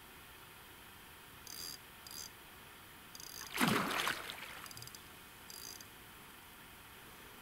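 Fishing reel whirring in short bursts, five times, as a hooked carp is played. About three and a half seconds in comes one louder burst of noise, the loudest sound here.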